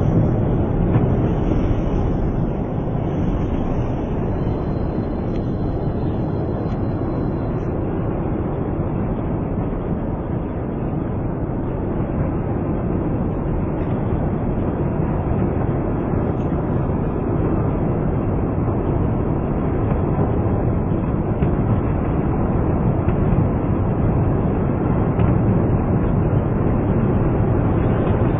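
A steady deep rumble with no distinct bangs: the ambient audio of a street recording of a large explosion's smoke cloud, slowed down about tenfold.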